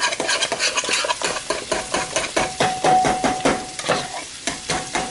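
Wire whisk beating parsnip and potato puree in a metal pot, scraping the pot in quick, irregular strokes several times a second. A faint steady tone joins about two seconds in.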